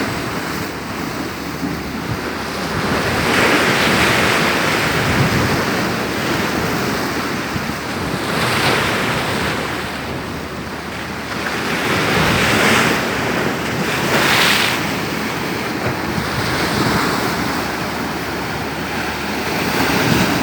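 Rough sea waves crashing in strong wind, the surge swelling up every few seconds, with wind buffeting the microphone.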